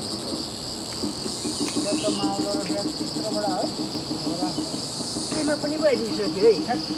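Chorus of insects in forest trees chirring steadily at a high pitch, with a second, higher insect drone that stops and starts.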